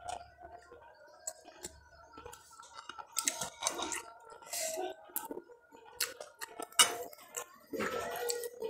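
A man chewing a mouthful of rice and stewed chicken close to the microphone, with wet mouth clicks and smacks and a sharp click about seven seconds in.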